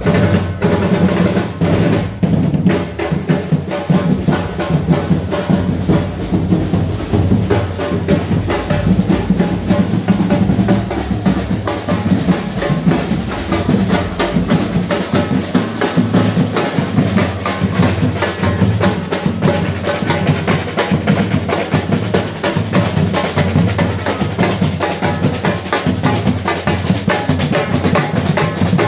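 Drum-heavy music: bass drum and snare driving a fast, steady beat, loud throughout.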